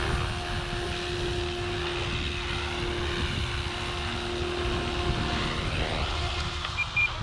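Electric RC helicopter (OMPHobby M4 Max) running low over the ground as it comes in to land, its steady rotor and motor tone stopping about five seconds in. Two short high beeps near the end.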